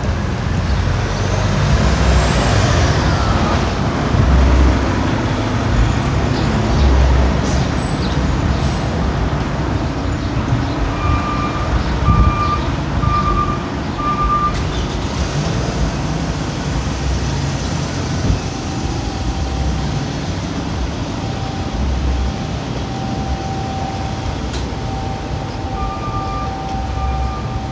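Street traffic: vehicle engines and tyres rumbling by, with one vehicle sweeping past in the first few seconds. A high electronic beeper sounds four evenly spaced beeps about eleven seconds in and starts beeping again near the end.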